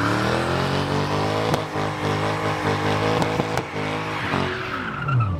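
Ford Mustang with Roush badging doing a burnout: the engine revs up and is held high while the rear tyres spin and squeal, with a few sharp cracks midway, and the revs fall away near the end.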